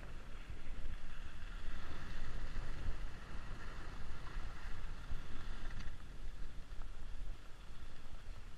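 Wind rushing over the camera microphone of a downhill skier, with the steady hiss of skis sliding and scraping on packed snow.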